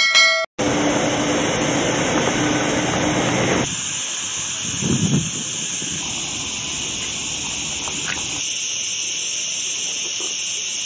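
A short chime, then a steady high hiss over a lower rush of noise. The lower rush drops away about three and a half seconds in, leaving the hiss.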